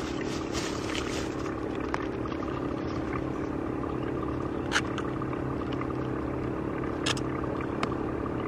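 A steady, even engine-like hum holding a constant tone, with two short sharp clicks, one about halfway through and one near the end.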